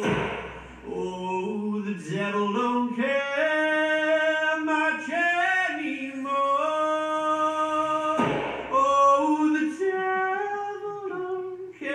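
Performance music of a lone singing voice holding long notes that step and slide between pitches, with little accompaniment. A short breathy hiss comes at the start and again about eight seconds in.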